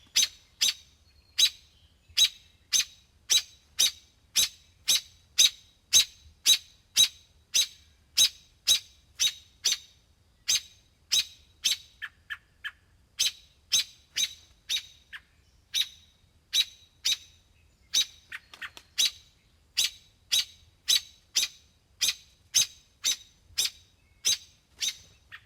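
European robin giving its alarm call: a long series of sharp, high ticks, about one and a half a second, kept up evenly throughout.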